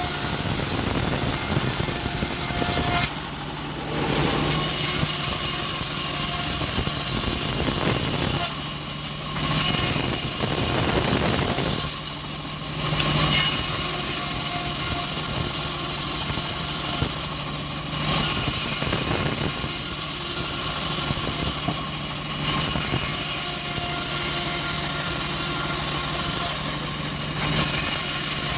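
Homemade engine-driven bandsaw mill running and sawing teak: a steady engine hum under the high hiss of the blade in the wood, which drops away briefly about every five seconds.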